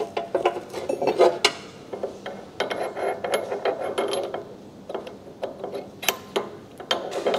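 Steel cone and spacers being slid onto a brake lathe's threaded arbor shaft by hand. Metal parts click and clink against each other, with a longer stretch of metal scraping on the shaft in the middle.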